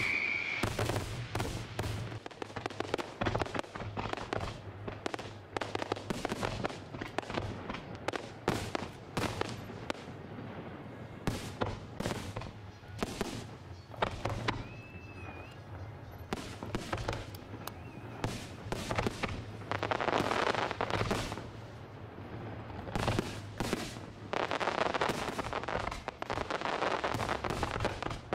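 Fireworks display: an irregular series of sharp bangs from shells bursting. There is a brief whistle about halfway through, and dense stretches of rapid crackling around two-thirds in and again toward the end.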